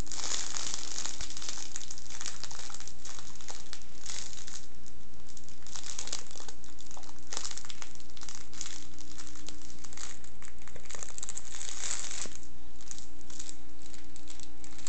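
Irregular crinkling and rustling close to the microphone, coming in uneven clusters, over a faint steady hum.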